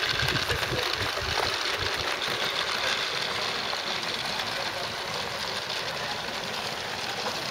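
A small 16mm-scale garden railway locomotive and its train of wagons running along the track, a steady light mechanical rattle, with a few low thumps in the first two seconds.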